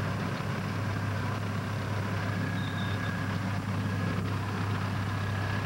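Snowcat engine running at a steady drone while the tracked machine drives through deep snow, heard from inside the cab.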